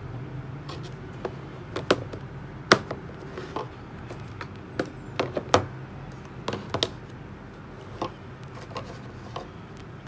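Rolls of washi tape and clear plastic storage boxes clicking and knocking as they are handled, set down on a desk and dropped into the boxes: irregular sharp taps, the loudest nearly three seconds in and about halfway through, over a faint low steady hum.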